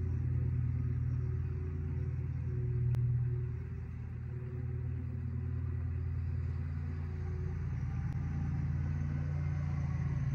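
A steady low droning hum with no distinct events.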